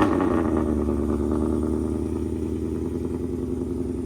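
Loud car engine just after start-up, its start-up flare settling into a steady fast idle within the first second.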